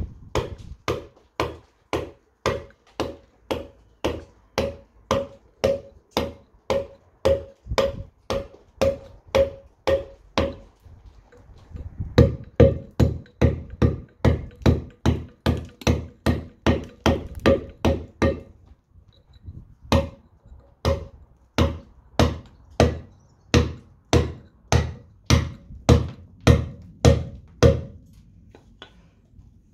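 Round mallet striking a steel chisel to rough out cut letters in a stone slab: steady taps about two a second, each with a short ringing note. The strikes pause briefly about two-thirds of the way in, then resume and stop shortly before the end.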